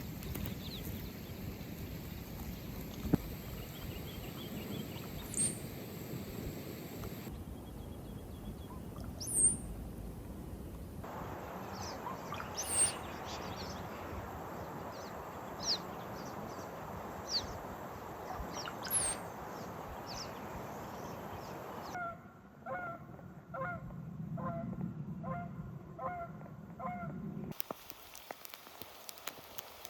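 Birds calling outdoors over several edited shots: scattered sharp high chirps against a steady background hiss, then a run of repeated pitched calls, about two a second, for several seconds near the end.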